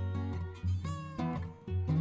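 Background music: plucked acoustic guitar playing separate notes over a bass line.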